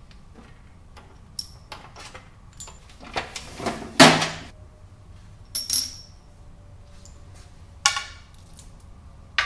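Small steel parts clinking as they are picked out of a metal tool drawer, then the drawer sliding shut and closing with a bang about four seconds in. After that come a ringing metallic clink and a sharp clatter of the steel pieces being handled.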